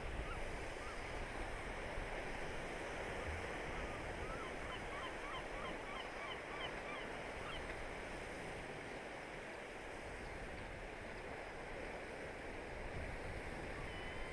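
Steady wash of surf and wind below sea cliffs, with a flurry of short, high bird calls over the first half.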